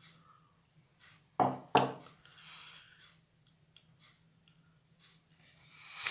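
Salt container and dishes being handled: two sharp knocks about a second and a half in, a brief rustling hiss of salt being shaken out, then a few light clicks.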